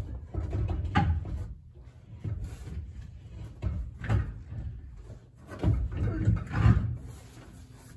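Irregular thumps and knocks of a big drag-slick tyre and wheel being handled and offered up to the car, the heaviest knocks coming in the second half.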